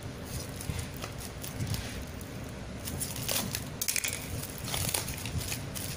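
Parcel packaging being torn open and handled by hand: plastic crinkling, with scattered sharp crackles, most of them a little past the middle.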